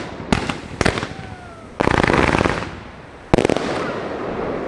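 Fireworks display: two sharp bangs in the first second, a dense burst of crackling around two seconds in, then another bang at about three and a half seconds that trails off into a long crackle.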